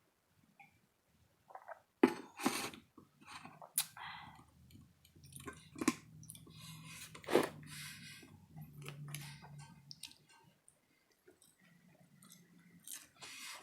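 Close-miked eating: chewing and mouth sounds with sharp clicks and clinks of cutlery on a plate, the loudest about two seconds in and again past the middle. A low hum sits under the middle few seconds.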